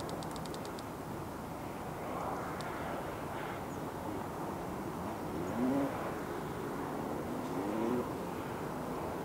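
Electronic carp bite alarm sounding a fast run of high beeps, about ten a second, for the first second, then stopping: line being pulled off as a carp takes the bait. After that only a low steady rumble, with a few faint rising tones.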